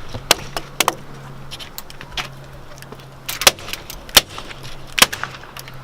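Sharp plastic knocks and clatters as an Apple keyboard is struck and broken apart, about six irregular blows, the loudest two in the middle. A steady low hum runs underneath.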